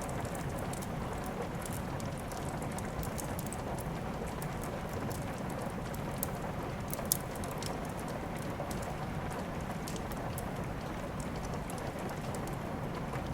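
Steady rain mixed with a wood fire crackling: an even hiss of rain under many small sharp pops, one louder pop about seven seconds in.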